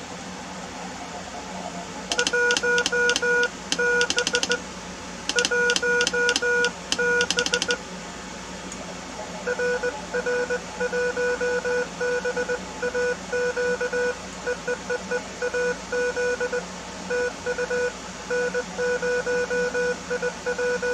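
Morse code (CW) tones at one steady mid pitch over radio hiss, keyed on and off in dots and dashes during a 20-meter ham radio contact. For the first few seconds the tones are hand-sent on a straight key and come with sharp clicks from its contacts. From about halfway in, a longer run of code follows without the clicks.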